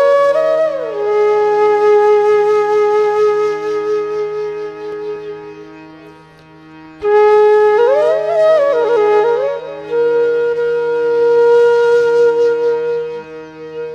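Background music: a woodwind plays slow phrases of long held notes with quick sliding ornaments, over a steady drone. A second phrase enters about seven seconds in.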